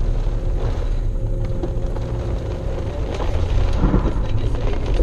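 Steady low rumble of a car driving through a heavy thunderstorm, with rain hitting the vehicle and road noise heard from inside.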